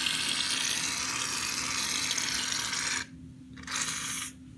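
Aerosol can of shaving cream dispensing foam with a steady hiss that stops about three seconds in, followed by a second short burst.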